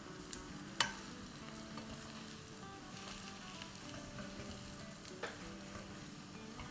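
Potato chunks and ground spices frying in oil in a nonstick pan, a soft steady sizzle, being stirred with a slotted spoon that knocks sharply against the pan twice.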